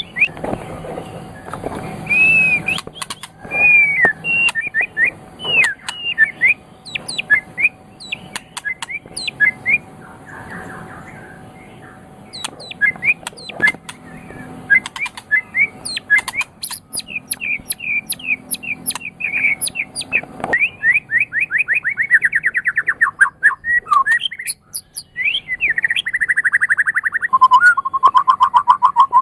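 White-rumped shama (murai batu) singing a long, varied song of whistled notes and chirps. In the second half it breaks into fast rattling trills, one sliding down in pitch.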